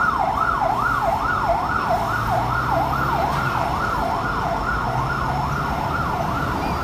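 Fire engine siren yelping, its pitch rising and falling quickly about two and a half times a second, over the low rumble of the truck's engine.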